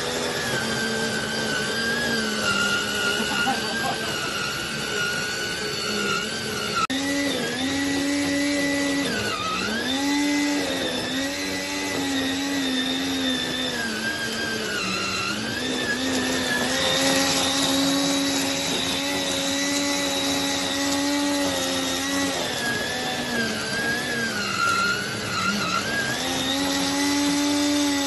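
Motor of a homemade remote-control weed trimmer spinning its cutting head, a steady motor whine. The pitch sags several times, as when the cutter is loaded by grass, and then recovers.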